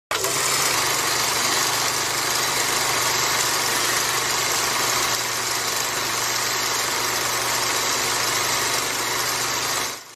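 Vintage film projector sound effect: a steady whirring hiss with a low hum, fading out just before the end.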